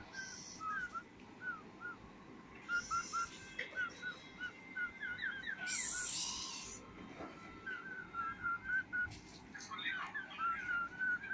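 Baby mongoose, about three weeks old, giving a long run of short high chirps, several a second, with a few brief bursts of hiss in between.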